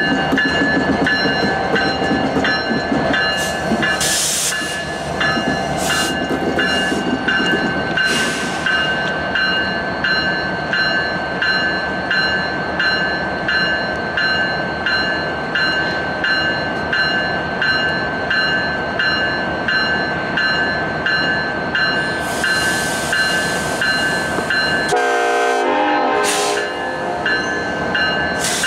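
Diesel locomotive bell ringing steadily, a little more than once a second, while a Union Pacific EMD SD70ACe locomotive rumbles slowly past during switching. Short hisses of air break in a few times, with a longer one near the end.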